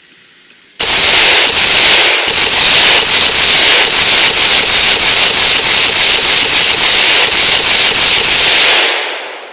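Double D Armory SST AR-15 in 5.56 NATO firing a rapid semi-automatic string of steel-cased Tula rounds, the shots coming so fast they run together, with a brief break about two seconds in. The mud-caked rifle keeps cycling without a stoppage.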